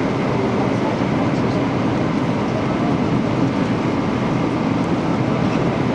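Airliner cabin noise: a steady rumble of engine and airflow heard from inside the passenger cabin.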